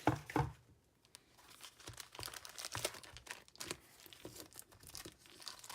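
Paper and packaging rustling and crinkling in irregular bursts as card-kit contents are handled, with a louder knock right at the start as the cardboard kit box is set aside.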